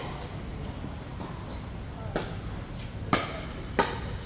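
Pickleball rally: three sharp pocks of the hard plastic ball off paddles and court in the second half, about a second apart, each ringing briefly in the covered hall.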